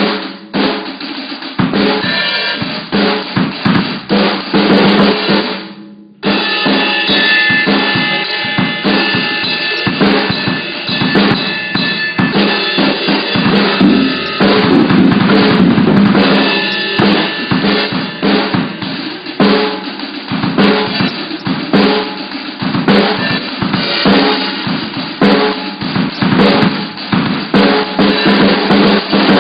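Drum kit played continuously in a dense stream of hits, with a brief break about six seconds in. The bare, emptied room makes the kit sound extra boomy.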